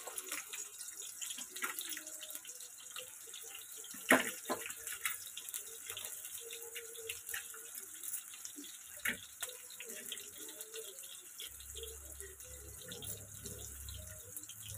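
Sliced onions frying in hot oil in a kadhai, just after going in: a steady sizzle with scattered crackles and spits. A sharper pop comes about four seconds in and another about nine seconds in.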